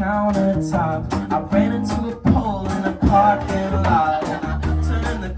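Live band music: strummed acoustic guitar over bass and drums, with a lead vocal singing the verse.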